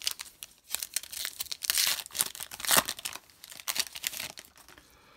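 Foil wrapper of a Panini Contenders football trading-card pack being torn open and crinkled by hand: a run of sharp crackles and rips, loudest about two to three seconds in, dying away near the end.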